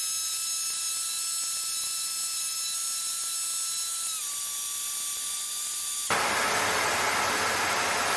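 Steady high-pitched whine in the Cessna 152's headset audio, made of several tones, which steps slightly lower in pitch about four seconds in. About six seconds in, a steady rush of engine and cabin noise cuts in abruptly.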